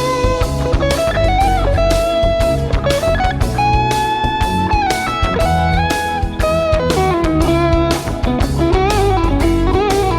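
Electric guitar, a Fender copy, playing a lead melody with bent notes and vibrato, including one long held note about halfway through, over a backing track with drums and bass.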